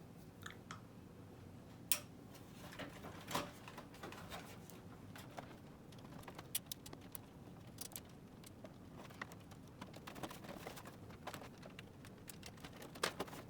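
Faint, scattered light metal clicks and taps of a flathead screwdriver working at small Phillips-head screws that it does not fit, with a few sharper clicks.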